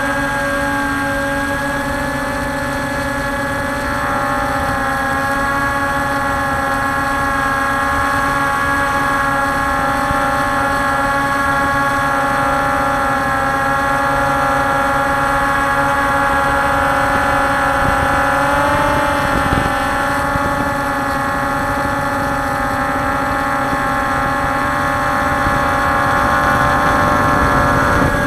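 Multirotor camera drone's motors and propellers whining steadily in hover, picked up by the drone's own onboard camera. The pitch wavers briefly about two-thirds of the way through.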